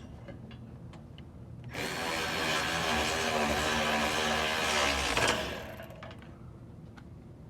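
A handheld power tool's motor runs at steady speed for about three and a half seconds, starting about two seconds in, then winds down. Light clicks of tools come before and after it.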